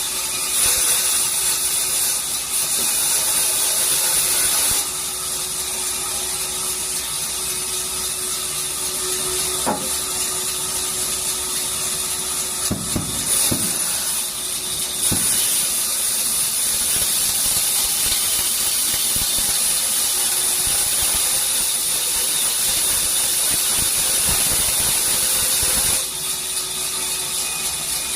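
Industrial band saw cutting through a reclaimed Burma teak beam: a steady, high hiss of the blade in the wood over a low machine hum. It steps down and back up in loudness a few times, with a couple of brief knocks about halfway through.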